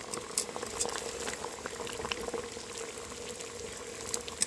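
Water at a rolling boil in a can, bubbling with many small irregular pops over a faint steady hum.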